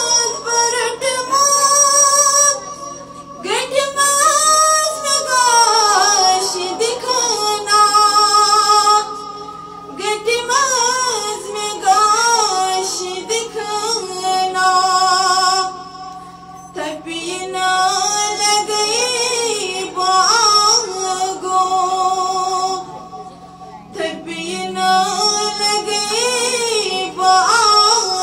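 A woman's voice singing devotional verses in long, ornamented melodic phrases with held, wavering notes, pausing briefly for breath every few seconds.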